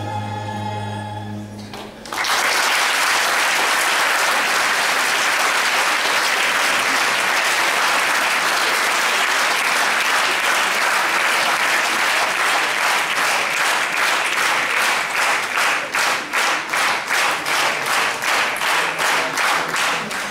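A chamber orchestra's final held chord dies away about two seconds in, then an audience applauds. The clapping falls into an even, pulsing rhythm toward the end.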